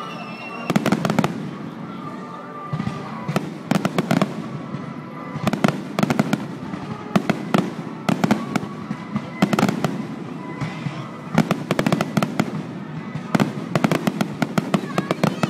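Aerial fireworks bursting in rapid volleys: many sharp bangs and crackles in quick succession, with short pauses between the clusters, over a low rumble of echoing reports.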